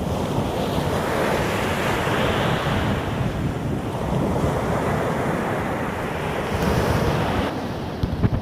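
Wind buffeting the microphone over the rush of waves breaking along the shore, swelling and easing, with a few sharp knocks near the end.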